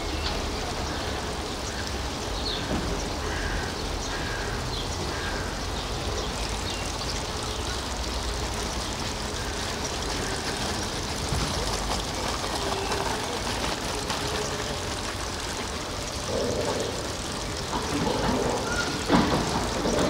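Steady low rumble and hiss of construction noise, with a few short chirps in the first seconds and louder, irregular sounds near the end.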